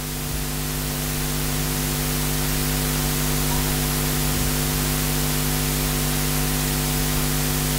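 Steady hiss with a low electrical hum, the room tone of a classroom recording, growing slightly louder over the first couple of seconds and then holding level.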